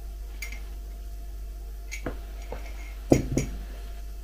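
A mug set down on a table: a sharp knock about three seconds in, with a lighter second knock just after it. It is preceded by a few faint clicks.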